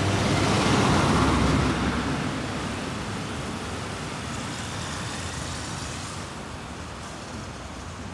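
A motor vehicle passing close by on the street: engine and tyre noise loudest in the first two seconds, then fading steadily as it draws away, leaving traffic noise in the background.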